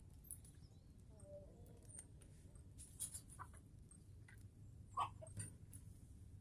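Meat chickens giving a few faint short calls, over scattered light clicks and knocks.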